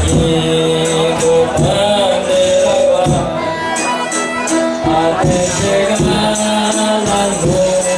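Folia de Reis music played without singing: sustained melodic instrument lines over a tambourine beating a steady rhythm.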